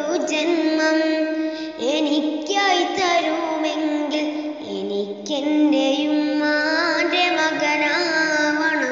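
A song: a high voice singing a melody with long held notes.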